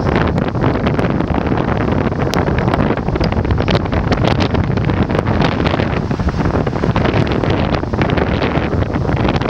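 Wind buffeting the microphone of a camera moving along at cycling pace: a loud, steady rumble with many small crackles.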